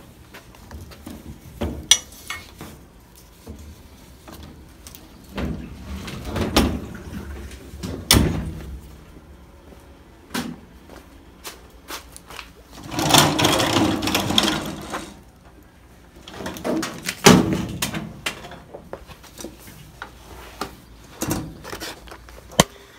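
Handling noises: scattered knocks and clunks as a washing machine is moved and tipped to show its underside, with one louder scraping rush lasting about two seconds in the middle.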